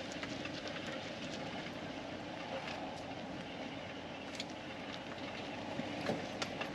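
Steady vehicle running noise, with faint scattered clicks and rattles.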